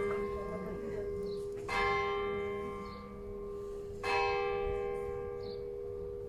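Church bell tolling. A stroke rings on from just before, then two more strokes fall about two and a half seconds apart, each ringing and slowly fading.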